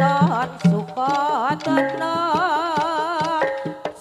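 Live jaranan music: a wavering melody with wide vibrato and pitch bends over kendang drum strokes and low held notes.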